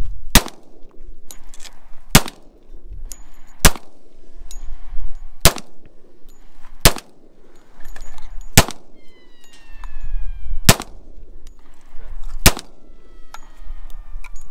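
.45 pistol fired eight times in slow, evenly paced shots, about one every one and a half to two seconds. Faint ringing tones sound between some of the shots.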